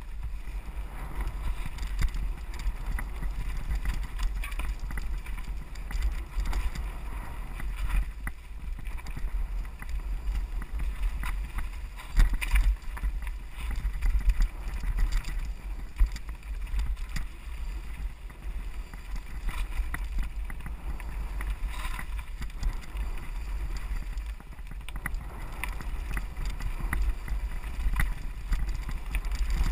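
Mountain bike descending rocky singletrack: a steady wind rumble on the camera's microphone with irregular knocks and rattles from the tyres and bike over stones, the sharpest knock about twelve seconds in.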